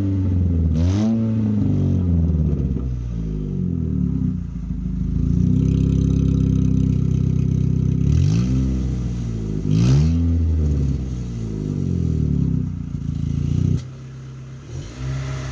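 Chevrolet Corsa's engine revved repeatedly in short blips, with one longer held rev in the middle, through an opened electric exhaust cutout that gives it a louder, sporty exhaust note. It drops back to a quieter idle near the end.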